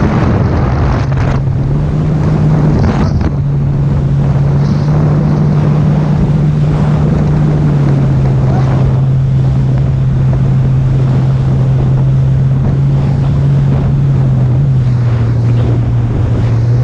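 Sea-Doo jet ski engine running at a steady cruising speed, a constant drone that dips slightly in pitch twice, under heavy rush of wind and spray on the microphone.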